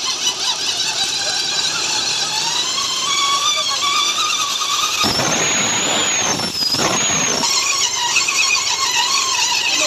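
Single-cylinder engine of an early TVS Apache RTR 150 running with a wavering, squealing whine over it, louder for a couple of seconds about halfway through. This is the abnormal noise the bike is being diagnosed for, which the title puts down to the gearbox.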